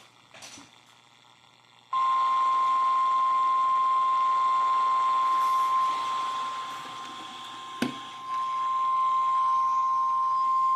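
NOAA Weather Radio warning alarm tone, a single steady high beep starting about two seconds in and held for about nine seconds, announcing a new severe thunderstorm warning. It dips in loudness for a moment past the middle, and a sharp click sounds near eight seconds in.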